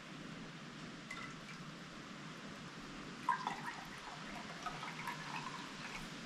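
Hot chicken bone broth being scooped into a glass canning jar: soft pouring and dripping, with a small knock about three seconds in.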